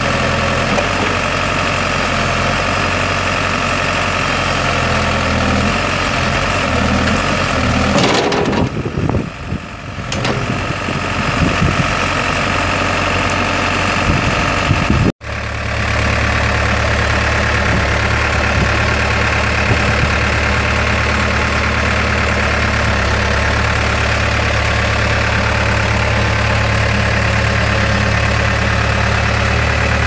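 A Case 590 Super M backhoe's 4T390 four-cylinder turbo diesel runs, its pitch shifting in steps through the first half and dipping briefly about nine seconds in. After a sudden break about fifteen seconds in, it idles steadily with a strong low hum.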